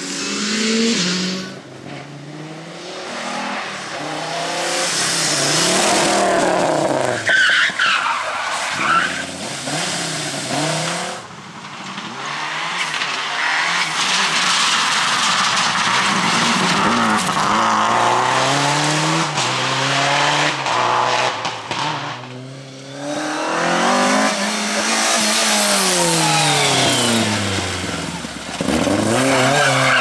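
Several rally cars passing flat out, one after another. Their engines rev hard, rise and drop through gear changes and lifts off the throttle, and each pass is cut abruptly into the next. About eight seconds in there is tyre squeal; in the middle a Subaru Impreza WRX STI rally car is driven hard.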